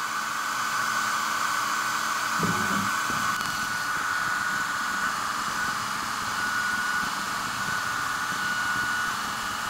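Steady rushing hiss of air from the diode laser head's air assist and fan, with a thin high whine that cuts in and out as the laser engraves the coated carbide bit shank.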